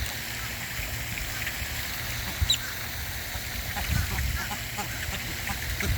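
Birds giving short, scattered calls over a low rumble, with one sharper high call about two and a half seconds in.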